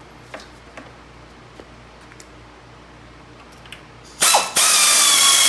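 A few light clicks of hand tools, then about four seconds in a power tool starts with a brief stutter and runs with a steady high whine, tightening down bolts.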